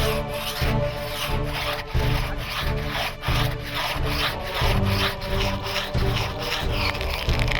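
Saw cutting through wood in quick, even rasping strokes, about three a second, over background music with a slow low beat.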